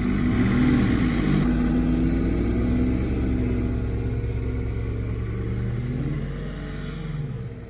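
Mercedes-Benz Atego expedition truck's diesel engine under load, driving out of soft sand where it had been stuck. The engine pitch rises and falls in the first second or so, then holds steady and fades near the end as the truck pulls away.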